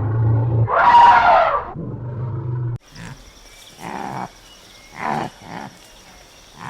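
Animal calls cut together from separate clips. A loud roar-like call comes about a second in, and a low steady sound cuts off abruptly near three seconds in. After that come a few shorter, quieter calls over a steady high-pitched whine.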